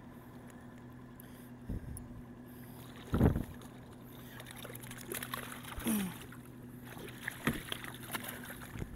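A few hollow knocks against a fishing kayak's hull, the loudest about three seconds in, while a hooked halibut is reeled to the boat. Near the end there is water splashing as the fish thrashes at the surface beside the kayak.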